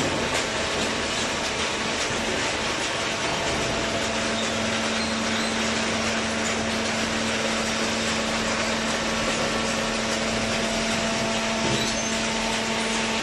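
Automatic hydraulic cardboard baler running: steady machine noise, with a steady hum that comes in about three and a half seconds in and holds.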